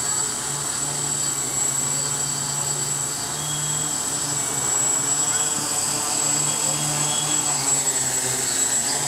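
Quadcopter (OFM-650 V4 / Xaircraft X650 V4) hovering low: its four brushless motors and propellers give a steady buzzing hum with a high whine, the hum swelling and easing as the throttle is corrected.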